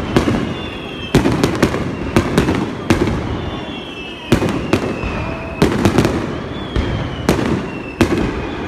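Fireworks finale: aerial shells bursting in quick volleys, sharp bangs in clusters about a second apart, each trailing off in a rumble. Thin whistles sliding down in pitch sound between the bangs.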